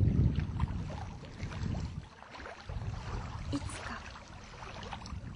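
Riverside ambience: wind rumbling on the microphone over the rush of a river. The wind rumble is strongest for the first two seconds, drops off, then returns more weakly.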